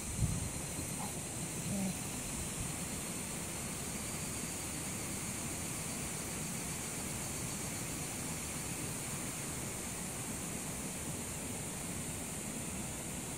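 A steady, high-pitched chorus of higurashi (evening cicadas) shrilling without a break, over a low, even rumble of wind on the microphone. A couple of soft low knocks in the first two seconds.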